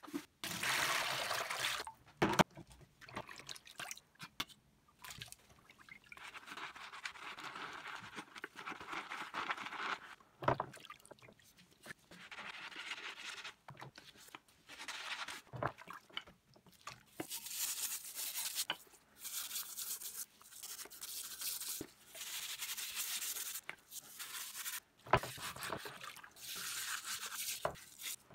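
Sponge scrubbing an old hinged metal cookie mold in a bucket of soapy water: bursts of wet scrubbing with water sloshing and dripping, broken by short pauses and a few sharp knocks of the metal.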